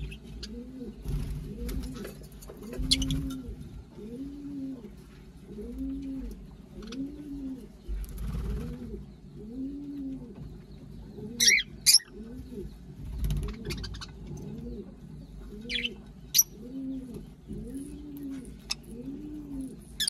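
Low cooing of doves, an arched call repeated evenly about one and a half times a second. Over it come a few shrill chirps from the lovebirds, two close together near the middle and one a few seconds later.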